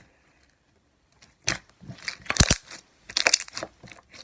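Slime being squeezed and worked in a plastic baggie, giving irregular clusters of crackling clicks and pops that start about a second in.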